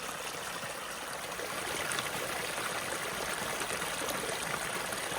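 Stream running: a steady rush of flowing water, a little louder from about two seconds in.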